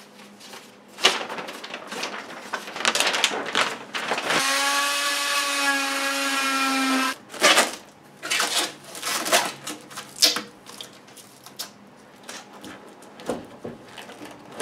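A handheld power tool runs at a steady pitch for about three seconds near the middle, cutting the laminate countertop opening wider for the sink. Around it are handling noises: paper and plastic wrap rustling, and knocks as the plastic-wrapped stainless sink is set into the cutout and shifted about.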